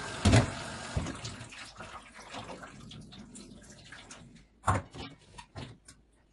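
Kitchen tap running into a stainless-steel sink while a glass bowl is rinsed under it; the water fades out about three seconds in. Knocks of the bowl and colander against the sink come near the start, about a second in, and loudest about two-thirds of the way through, followed by a few light clicks.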